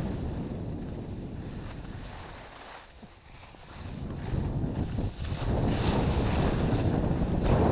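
Wind rumbling over the camera microphone while skiing downhill, with skis hissing over the snow. It dies down about three seconds in, then builds back up.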